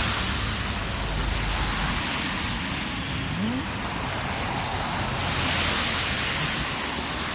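Steady rushing noise of road traffic on a slushy winter street.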